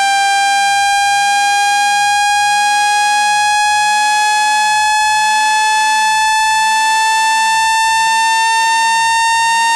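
Phone speaker-cleaning (water-eject) tone: a loud, buzzy synthesized tone with many overtones, its pitch gliding slowly upward. It is meant to shake trapped water out of a phone's speaker grille.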